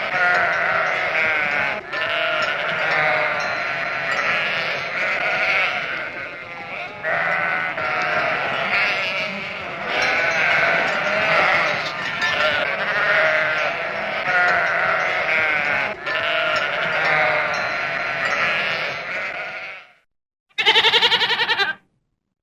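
Billy goats bleating almost without pause, wavering calls running into one another, then a short break and one loud bleat near the end.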